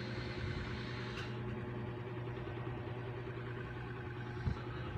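A steady low hum runs without change, with a short soft thump near the end.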